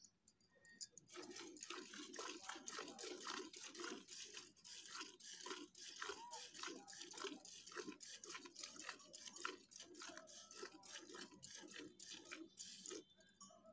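Cow being milked by hand: rhythmic squirts of milk hitting a steel bucket, in quick succession, starting about a second in and stopping just before the end.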